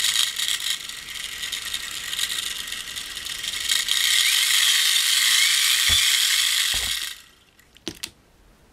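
Hand-cranked gearbox generator, a small DC motor driven through a metal spur-gear box, whirring and clattering as its crank is turned. It gets louder about four seconds in and stops abruptly about seven seconds in, followed by a couple of light knocks as the unit is set down.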